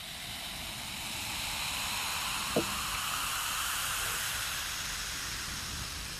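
A soft, steady hiss from the ASMR beer commercial's soundtrack. It swells over the first couple of seconds and fades near the end, with a single light tap about two and a half seconds in.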